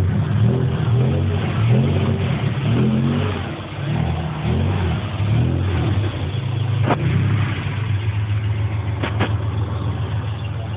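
Chevrolet Opala 4.1-litre straight-six rumbling as it is revved again and again in quick rises and falls, then settling to a steady idle for the last few seconds. A few sharp clicks sound about seven and nine seconds in.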